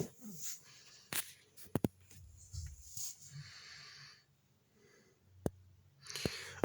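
Handling noises as a table fan is turned around: several sharp clicks and knocks with some rustling, over a faint low hum.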